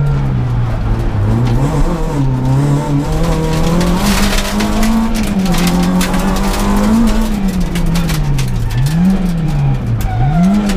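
Peugeot 106 S16 rally car's 1.6-litre 16-valve four-cylinder, heard from inside the cabin and driven hard, its revs climbing and then dropping sharply again and again through gear changes and braking for bends. A brief rush of noise comes about four seconds in.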